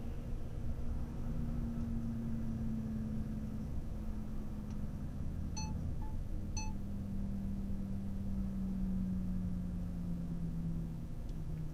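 Engine and road noise inside a moving vehicle's cab, a steady hum whose note eases slightly lower in the second half. Three short beeps sound about halfway through.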